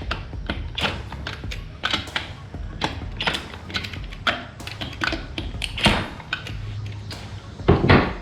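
Lug nuts being tightened on an ATV wheel: irregular sharp metallic clicks and clanks of tools and nuts over a low steady hum, with a short louder burst near the end.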